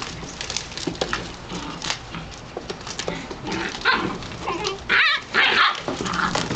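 Portuguese Podengo Medio puppies play-fighting: a steady clatter of small claws and paws scrabbling and knocking on a hard plastic tub, with a few loud high-pitched yelps in the second half.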